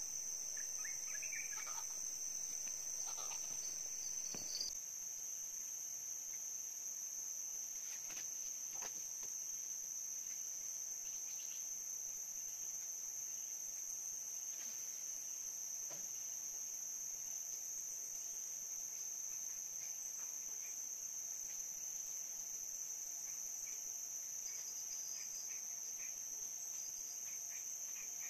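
Insects droning steadily at a high pitch, with a few faint ticks.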